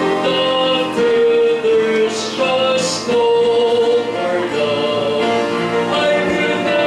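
A man singing a gospel song into a microphone over instrumental accompaniment, holding long steady notes.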